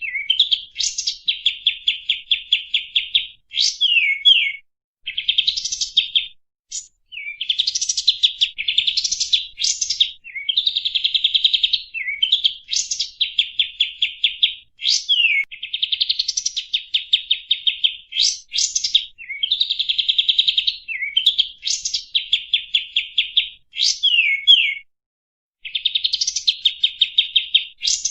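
Kapas tembak bird singing in repeated phrases. Each phrase is a long, rapid trill of evenly repeated notes, broken by quick upward and downward sweeping whistles, with brief pauses between phrases.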